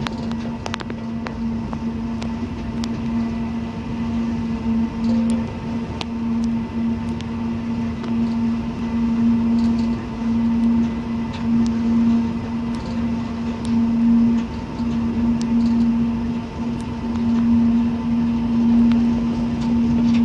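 Diesel locomotive heard from inside its cab while running: a steady low drone with a constant hum over the rumble of the running train, and scattered sharp clicks.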